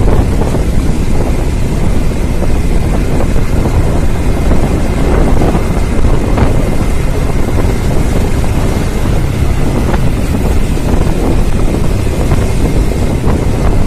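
Wind buffeting a phone microphone on a moving motorbike, a loud, steady low rushing with road and traffic noise mixed in.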